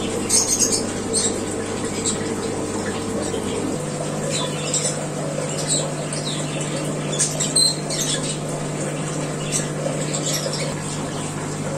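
Steady hum of aquarium air pumps with aeration bubbling in the tanks; the hum shifts to a slightly higher pitch about four seconds in. Short high chirps and squawks of caged birds sound over it throughout.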